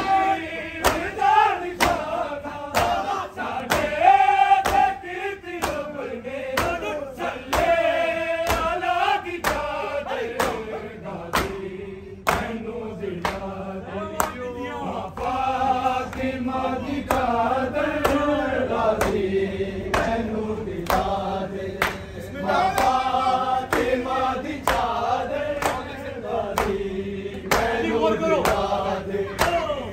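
A group of men chanting a Punjabi Muharram noha in unison, voices rising and falling together. Sharp slaps of matam, hands beating on chests, keep a steady beat under the chant.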